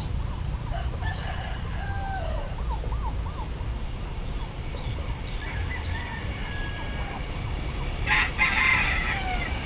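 Rooster crowing, with the loudest crow about eight seconds in, over a steady low rumble.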